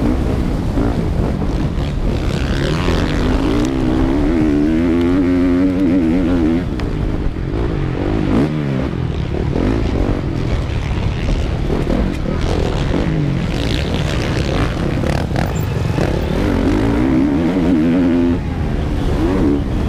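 Single-cylinder four-stroke engine of a Honda CRF450R motocross bike at race pace, heard from on board. Its pitch climbs and drops over and over as the throttle is opened and chopped through the gears.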